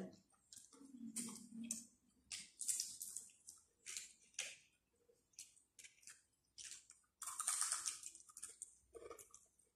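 Plastic bag and food wrappers rustling and crinkling in short, irregular bursts, with small clicks and eating sounds.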